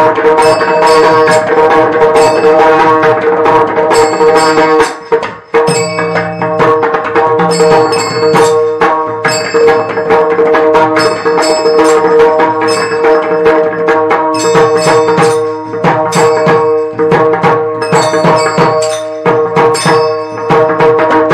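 Kirtan accompaniment music: mridang drum strokes over a steady held drone, with small hand cymbals ringing. The playing breaks off briefly about five seconds in, then carries on.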